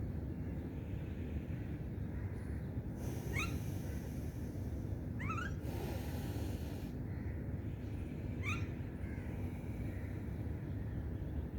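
Slow nasal breathing of alternate-nostril breathing (nadi shodhan): airy breath hiss through the nose over a steady low hum, strongest about six seconds in. Three short rising chirps come about three, five and eight seconds in.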